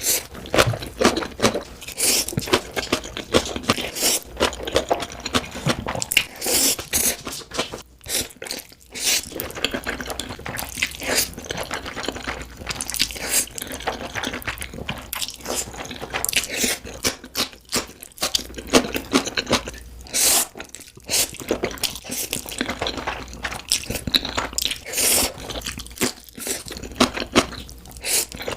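Close-miked eating sounds: steady chewing with frequent crunchy bites and wet mouth clicks, in quick irregular succession.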